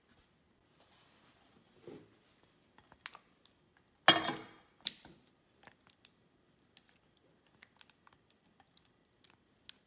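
Silicone spatula scraping thick pumpkin puree from one glass bowl into beaten eggs in another, with one loud squishy thud about four seconds in and a sharp click just after. Light scattered clicks and taps of the spatula and bowls against glass follow.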